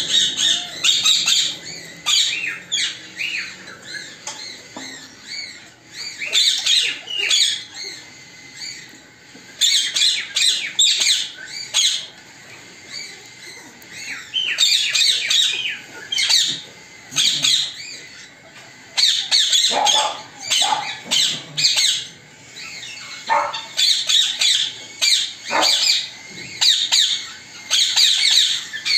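Ringneck parrots calling in repeated bursts of high, harsh squawks and chirps, coming in clusters with short pauses between them.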